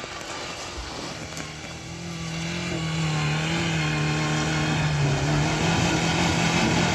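Off-road 4x4's engine revving up about two seconds in and then held at steady high revs under load on a snowy hill climb.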